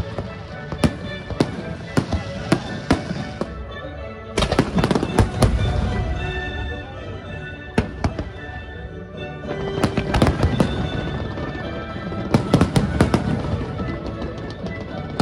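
Fireworks display: single sharp bangs at first, then dense volleys of bangs and crackling about four seconds in and again about ten seconds in, over music.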